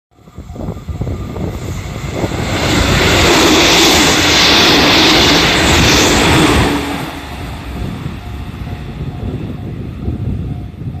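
JR 313 series electric multiple unit passing over a level crossing. Its running noise swells over the first couple of seconds, is loudest from about three to six and a half seconds in, then drops to a lower steady rumble as the train runs away. The crossing's warning bell dings steadily underneath.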